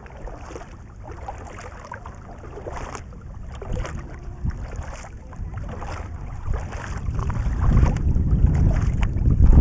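Surf ski paddle strokes swishing through the water about once a second, with water running along the hull. Wind buffets the microphone, its low rumble growing louder over the second half.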